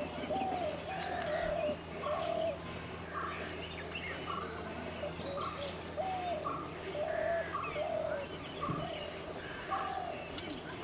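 Several birds calling together. One bird gives a short mid-pitched call over and over, about once a second, while others add quick, thin, high chirps.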